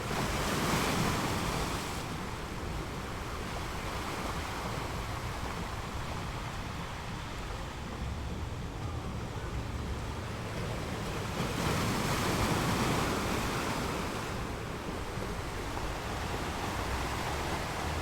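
Sea waves washing ashore, a steady surf noise that swells twice, about a second in and again about two-thirds of the way through.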